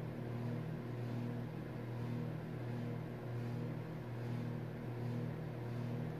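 A room heater running: a steady low hum.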